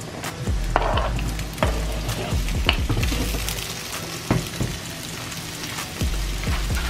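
Sausages sizzling as they fry in olive oil in a pan: a steady hiss with scattered clicks and knocks.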